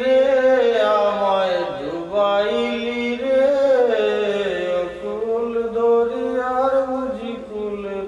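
A single voice singing long, drawn-out notes that slide up and down in pitch.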